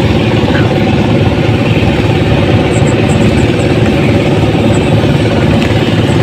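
A small engine running steadily with an even, rapid pulsing and no change in speed.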